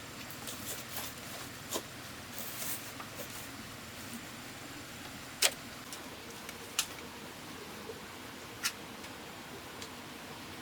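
A few sharp knocks and clicks, the loudest about five seconds in, with some soft rustling near the start, over a steady background hiss.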